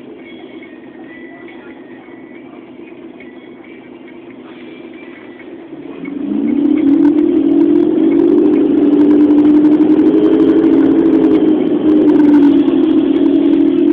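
Volvo Olympian double-decker bus's diesel engine heard from inside the upper deck: it runs low and quiet, then about six seconds in the bus pulls away, the engine note rising and growing loud, and it holds a steady drone with a brief dip in pitch near the end.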